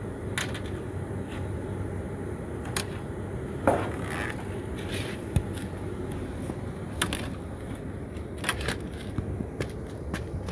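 Scattered metallic clicks, knocks and scrapes as a ventilation box's motor plate is taken apart, over a steady low hum.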